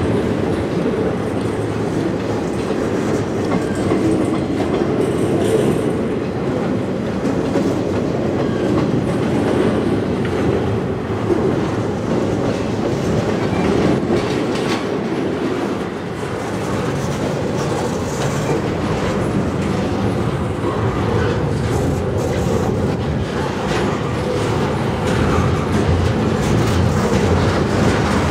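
Double-stack intermodal container train rolling past at close range: a steady rumble of steel wheels on rail, with repeated clacks of the wheelsets over rail joints.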